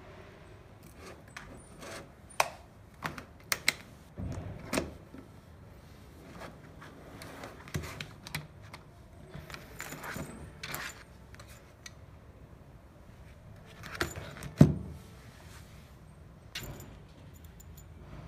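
Handling noise from a scooter charger's cord and metal-cased box being moved on a table: scattered light clicks, taps and rustles, with a sharper knock about fourteen seconds in. Some clicks sound like the cord's round metal plug clinking.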